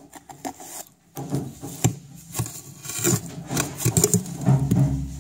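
A hand tool scraping through compost and lifting rotting apples in a worm bin: irregular scrapes, rubs and small knocks.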